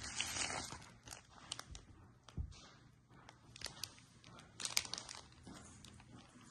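Plastic packaging crinkling as a small remote is unwrapped from a bubble-wrap pouch and a thin plastic bag: a faint crackle in the first second, then scattered sharp crinkles and clicks.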